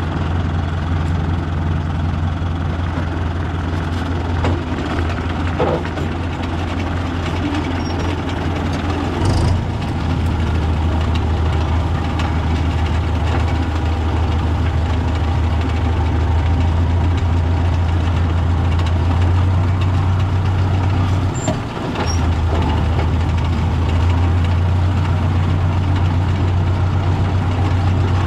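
Older Fendt tractor's diesel engine running steadily while pulling a rotary hay tedder, heard close up from the tractor. The engine note dips briefly about 21 seconds in.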